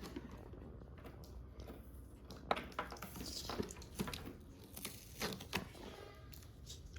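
Faint rustling and scattered light clicks of packaging and plastic toy pieces being handled as a toy is taken out of its box.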